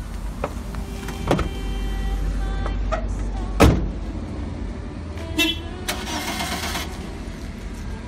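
Van engine running after a remote start, with a sharp thump about three and a half seconds in and a short alarm chirp a couple of seconds later.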